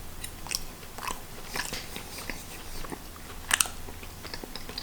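A person chewing a mouthful of potato ball close to the microphone, with wet mouth clicks and smacks. The loudest click comes about three and a half seconds in.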